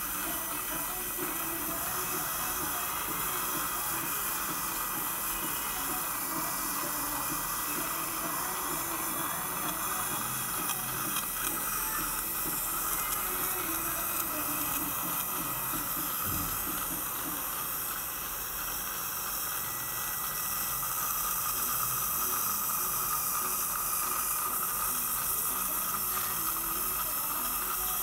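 Dental saliva ejector suction running in the patient's mouth, a steady hiss with a faint thin tone above it.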